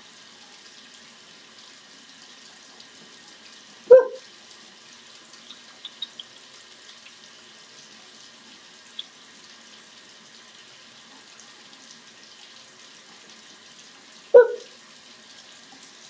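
Bathroom sink tap running steadily, the water splashing over a hand held under the spout. Two short, sharp sounds stand out, about four seconds in and again near the end.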